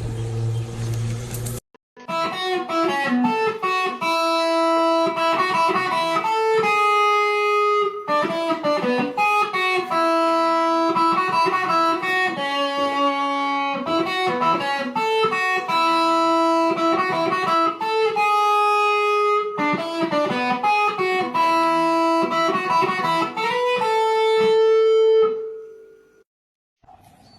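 Background music: a plucked-string melody of short repeated phrases, starting about two seconds in and fading out near the end. It is preceded by a brief stretch of other noise with a low hum.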